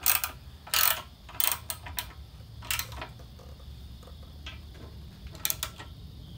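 Ratcheting wrenches clicking and clinking against steel as the 18 mm nuts on a winch fairlead's mounting bolts are tightened: a string of short, sharp metallic clicks at irregular intervals.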